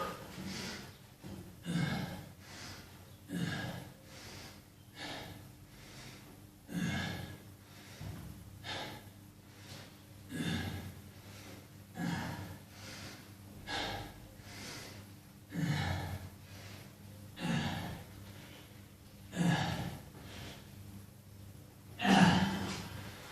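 A person breathing hard and forcefully during a weight-training set, a sharp puff or gasp about every two seconds, the last one near the end the loudest.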